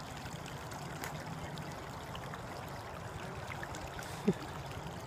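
Creek water running and trickling over rocks, a steady even rush. About four seconds in, a short vocal sound cuts through it.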